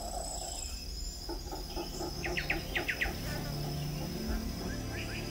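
Tropical forest ambience: a steady high insect whine, with a run of quick downward-sliding chirps about two seconds in and a lower rapid pulsing chorus beneath.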